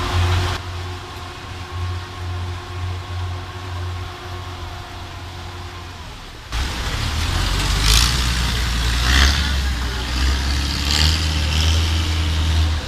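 An engine running with a steady low hum. About two-thirds of the way through, the sound cuts to a louder engine hum with short hissing gusts over it.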